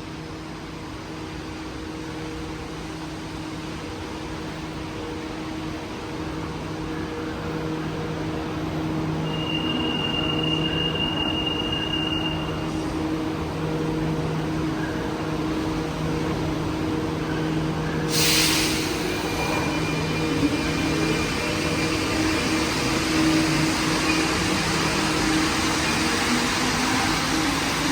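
Santiago Metro rubber-tyred train running slowly: a steady electrical hum over a background hiss that grows louder, with a short high tone near the middle and a sudden hiss about two-thirds through. Near the end the motor tone starts to rise as the train picks up speed.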